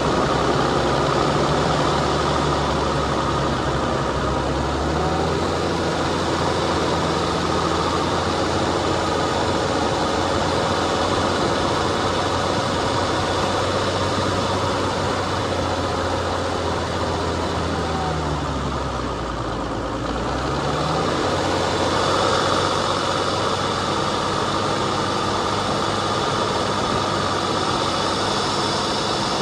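Off-road vehicle's engine running at low trail speed over a steady wash of noise, its note changing about five seconds in, then dipping and climbing again about two-thirds of the way through.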